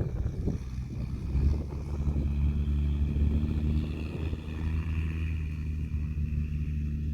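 Land Rover Discovery 2 Td5's five-cylinder turbodiesel running steadily while driving off-road, with several knocks in the first second or two and a faint high whine above the engine.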